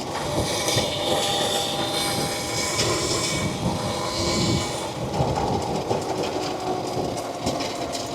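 Electric mini bike moving over a dirt trail, its drivetrain making a steady rattling clatter with a faint motor whine. The rider wonders whether the noise comes from the chain.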